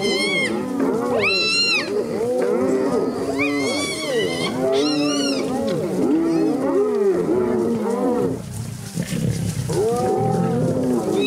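A chorus of spotted hyenas and lions calling over a kill: many overlapping rising-and-falling yelps and whoops, some high-pitched, mixed with lower growling calls, easing off briefly about two thirds of the way through.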